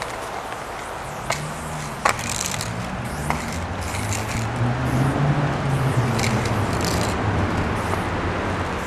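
Aerosol spray paint can hissing in short bursts as a tag is sprayed onto a wall, with a few sharp clicks, over a steady low rumble of traffic.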